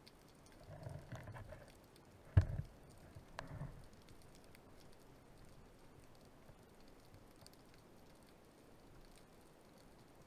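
Underwater ambience: a faint, steady crackle, with a brief low rumble about a second in. A single sharp knock at about two and a half seconds is the loudest thing, and a smaller click follows a second later.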